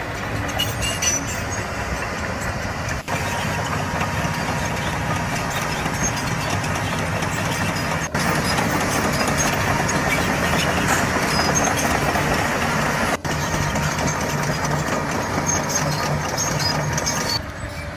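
Heavy earthmoving machinery running under load, a dense steady diesel engine and mechanical clatter that carries on through several clips, broken by short dropouts at the cuts.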